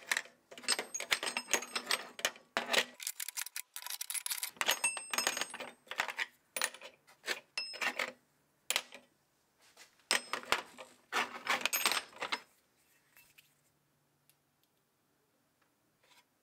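Vintage S-K chrome steel sockets and extension bars clinking and rattling against each other and the steel tool box as a hand sorts through them, with bright metallic ringing. The clatter is dense for about twelve seconds, then thins to a few faint clicks.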